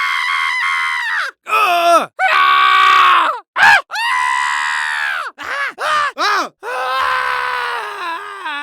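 Cartoon sound effects played one after another: about eight separate squeaky, voice-like sounds whose pitch swoops up and down. The middle ones are short and arching, and a longer one wobbles downward near the end.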